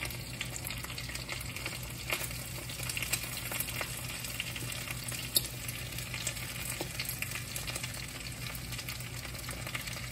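Vegetable egg rolls frying in shallow oil in a nonstick pan: a steady sizzle with scattered crackles and small pops, one louder pop about five seconds in.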